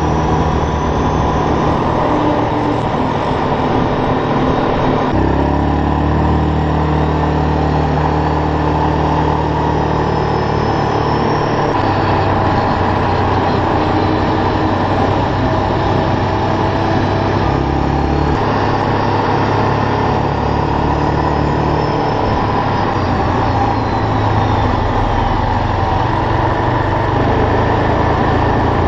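Four-wheeler ATV engine running while riding on a dirt road. Its pitch holds steady for several seconds at a time and then steps up or down as the throttle changes, over a steady rushing noise.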